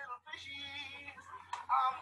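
A man's voice singing one long held note that wavers slightly, about a second long, then breaking into quick voiced phrases near the end. It is sitcom soundtrack audio played back through a computer.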